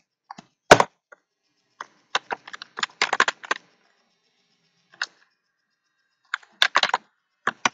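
Computer keyboard typing in uneven bursts: a loud single keystroke just under a second in, a quick run of keys from about two to three and a half seconds, one more around five seconds, and another short run near the end.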